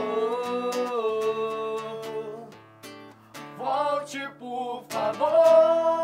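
Live acoustic guitar with a man and a woman singing a love song. A long held sung note fades out about two and a half seconds in, and after a short phrase another long note is held from about five seconds in.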